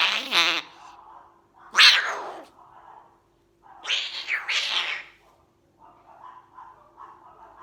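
Umbrella cockatoo making harsh, cat-like hissing screeches: three loud bursts, the loudest about two seconds in, followed by quieter short calls.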